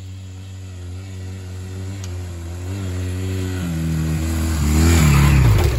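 Motorcycle engine running as the bike approaches, growing steadily louder, with a couple of brief throttle changes. Near the end it passes close by at its loudest and its pitch drops.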